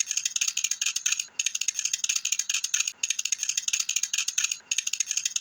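Rapid high-pitched rattling in repeating stretches of about a second and a half, each broken by a brief gap.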